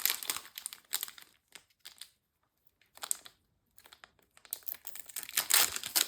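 Crinkling of a foil trading-card booster pack wrapper being handled, with a quiet pause in the middle and louder crinkling near the end.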